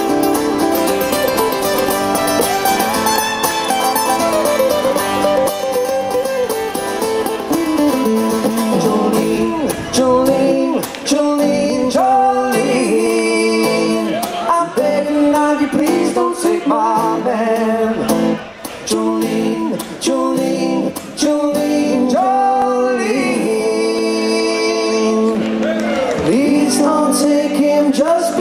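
Live music from two acoustic guitars played together, with a man singing lead over them from about ten seconds in.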